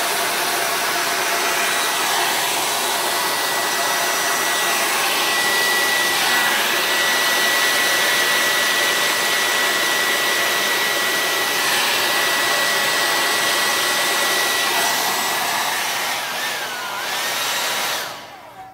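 Handheld hair dryer running steadily, a rush of air with a thin high whine over it, switching off near the end.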